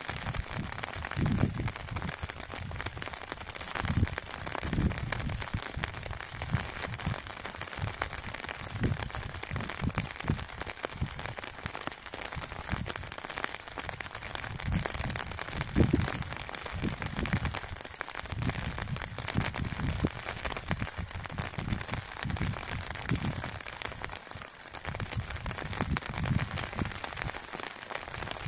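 Rain falling steadily, a constant hiss, with irregular low rumbles swelling every second or two.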